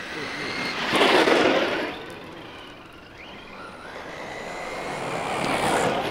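Brushless-motored 1/10-scale RC monster trucks running at full speed on tarmac: a high electric motor whine over tyre rush. It is loudest as one truck passes about a second in, and swells again near the end.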